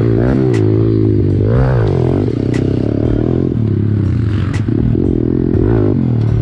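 Small pit bike engine revving up and down repeatedly as it is ridden hard over a dirt track.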